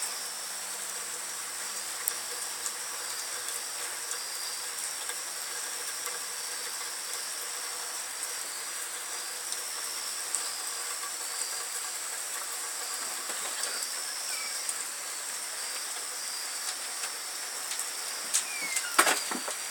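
Steady night-time rain hiss with a thin, steady high-pitched whine over it. A faint low hum sits underneath for the first half and fades out, and a few clicks come near the end.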